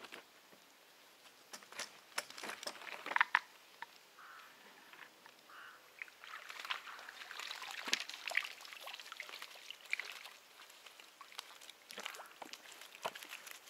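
Small water splashes and trickling at the water's edge, with irregular clicks and rustles.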